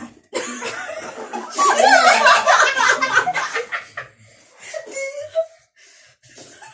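Several people laughing together, the laughter building about a second in, loudest for a couple of seconds, then trailing off, with a short voiced sound after.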